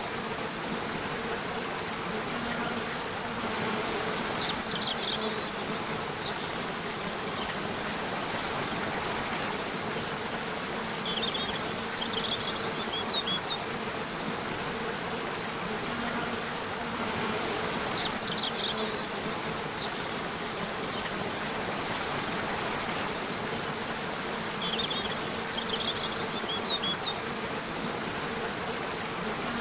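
Nature-sounds ambience: a steady low buzz over an even hiss, with short clusters of high chirps about every seven seconds.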